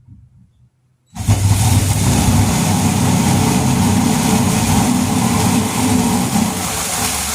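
A 6-inch drill-powered mini chainsaw running and cutting through wood. It starts suddenly about a second in and stays loud and steady.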